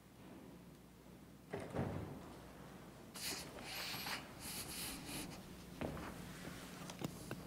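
Soft footsteps and rustling of paper, with a thump about one and a half seconds in, rustling from about three seconds in, and a few light clicks near the end.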